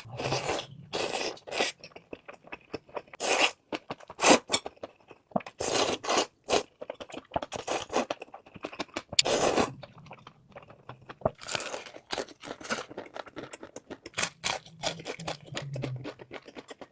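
Close-miked eating: bites and chewing of food, heard as irregular, sharp crunching bursts throughout.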